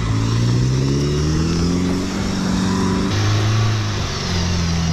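Off-road 4x4's engine revving in mud: the revs climb over the first three seconds, then it runs at steadier revs that step down and back up.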